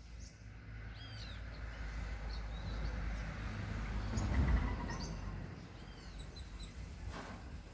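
Wind gusting on the microphone, rising to a peak a little past halfway and then easing off, with short, high bird chirps scattered through it.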